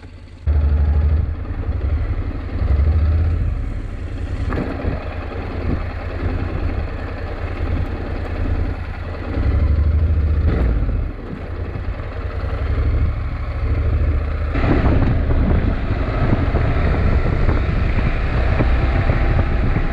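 Honda NC750X parallel-twin motorcycle being ridden, its engine running under heavy wind rumble on the camera microphone. The sound shifts abruptly a few times, about half a second, four and a half and fourteen and a half seconds in.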